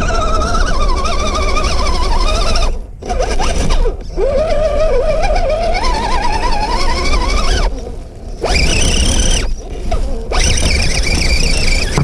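Electric motor and gear drivetrain of a 1/10-scale RC crawler whining as it climbs a dirt slope. The pitch wavers and rises and falls with motor speed, and it cuts out briefly about three, four, eight and ten seconds in as the throttle comes on and off.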